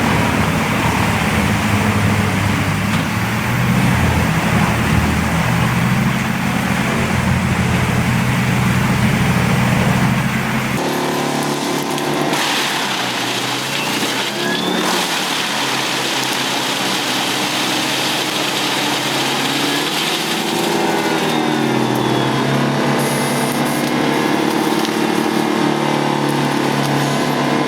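Large wood chipper engines running. About eleven seconds in the sound switches abruptly from a deep, steady hum to a different, higher-pitched engine whose pitch dips and rises a few times.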